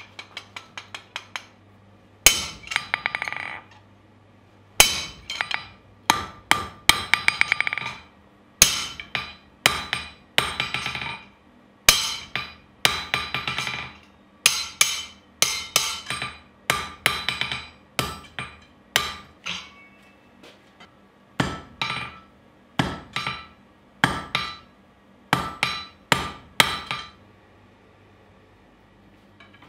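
Blacksmith's hand hammer striking hot steel on an anvil, forging it through a spring fuller. Blows come in quick bursts, each with a metallic ring: light taps first, then heavy strikes, with a short pause about two-thirds of the way through.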